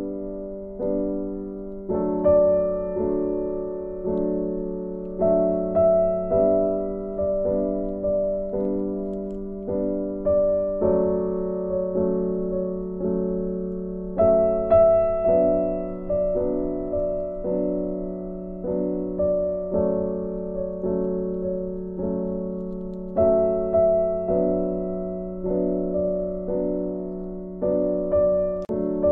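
Background music: slow, gentle solo piano, each note struck and fading over a held low note.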